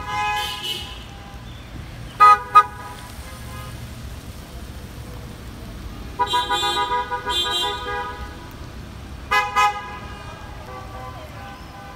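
Car horns honking as a line of cars drives slowly past: two quick toots about two seconds in, a longer double honk around six to eight seconds, and another short honk near ten seconds, over the low steady rumble of the passing cars.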